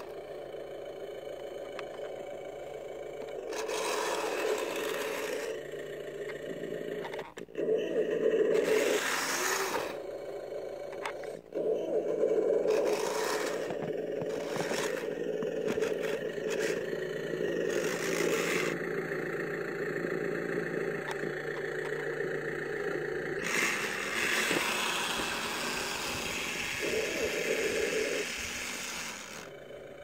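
Kyosho Blizzard RC snowcat's electric motor and gear drive whining as it drives its tracks through deep powder snow, the whine dropping out briefly a few times as the throttle comes off.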